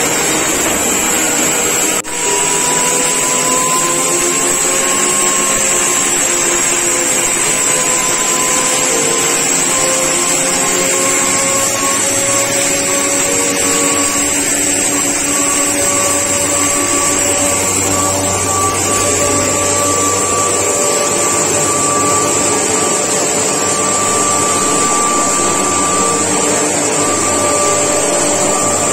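Auto suction grinder running under load, grinding maize: its 3 HP single-phase motor and blower make a loud, steady rushing whine. The pitch creeps slightly higher over time, and the level dips briefly about two seconds in.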